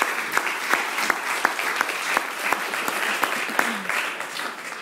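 Audience applauding: many hands clapping in a dense patter, with individual sharp claps standing out.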